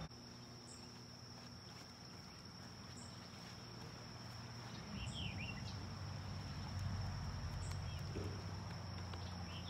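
Lakeside ambience: a steady high-pitched insect drone under a low hum that swells a little towards the end, with a few faint bird chirps.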